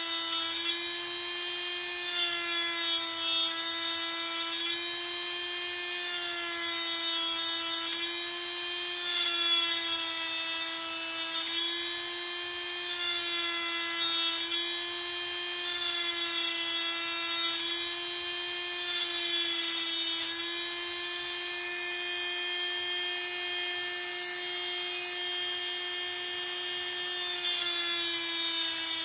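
Small electric power tool, such as a rotary tool or drill, running steadily as it works Tulsi wood for bead-making: a constant motor whine whose pitch wavers slightly now and then.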